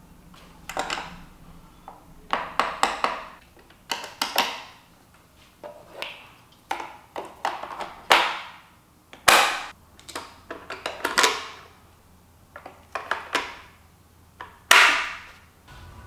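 Plastic clicks, snaps and knocks in irregular clusters, the loudest about nine seconds in, as the main roller brush and the brush housing of a Xiaomi Mijia STYJ02YM robot vacuum mop are handled and the brush is fitted back in.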